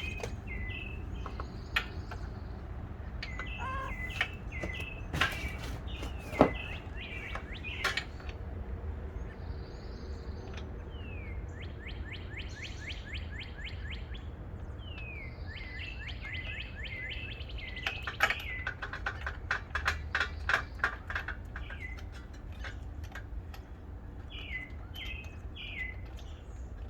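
Small birds chirping and trilling over and over, short high notes with two fast rattling trills about 11 and 18 seconds in. Scattered sharp clicks and knocks of work on the mower, the loudest about six seconds in, over a low steady outdoor rumble.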